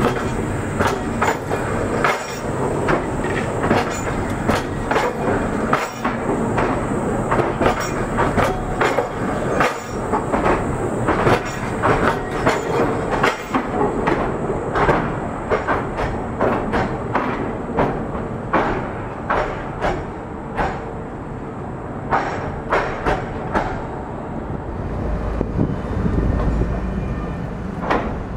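Škoda 15T tram's wheels clattering over a Californian surface switch, a portable crossover laid on top of the track: a long, irregular run of sharp knocks and clanks as the wheelsets roll across the joints. The knocks thin out after about 24 seconds, and a low rumble follows as a second tram, a Tatra KT8, comes up to the crossover.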